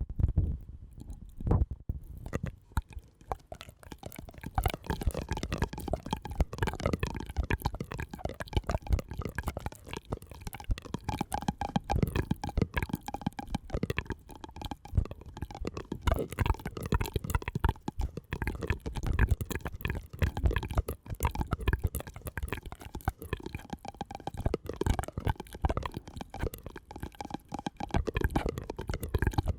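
Close-miked ASMR mouth sounds: a dense, continuous run of quick wet clicks and pops.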